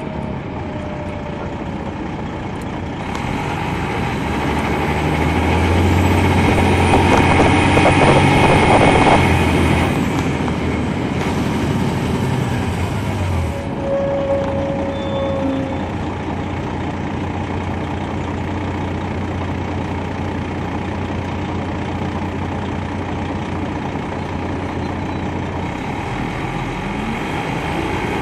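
Detroit Diesel Series 60 engine of a 2003 MCI D4500 coach, heard from inside the moving bus. The engine grows louder over several seconds, peaks about eight or nine seconds in, then eases back to steady running at a lower level.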